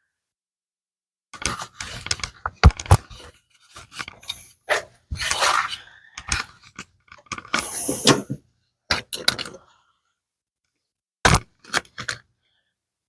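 Small workshop parts being handled and fitted together by hand: a run of clatters, taps and scrapes for several seconds, then a few sharp knocks near the end.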